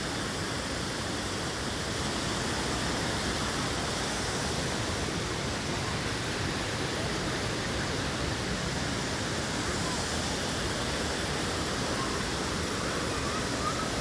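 Steady rushing of shallow river water flowing over rock ledges and cascades.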